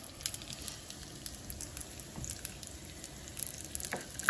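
Pine nuts toasting in a little olive oil in a small frying pan, sizzling steadily with scattered light crackles. A wooden spoon starts stirring them near the end.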